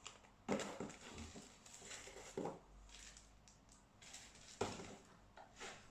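Rummaging among small objects: a handful of light, scattered knocks and rustles as things are moved and picked up.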